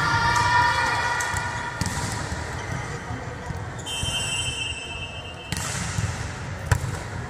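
Volleyball play in a reverberant gym: the ball is struck and thuds, with the sharpest smack near the end, and players shout in the first couple of seconds. A shrill steady note runs for about a second and a half from about four seconds in.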